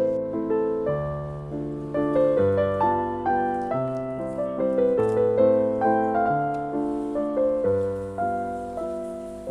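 Background music: a gentle piano melody of struck notes, each fading out, over a simple bass line.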